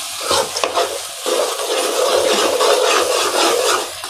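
A ladle stirring and scraping thick soya-chunk masala curry round a coated kadai, in repeated strokes over a frying sizzle. The ground masala is being fried until its raw smell goes.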